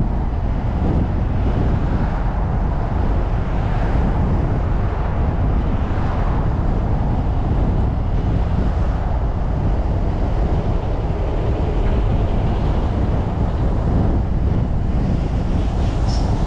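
A car driving along a city street: a steady low rumble of road and engine noise, with wind buffeting the microphone.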